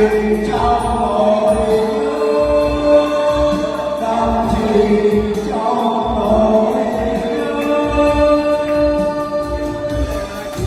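Music with sustained choir-like chords and slow, held melody notes.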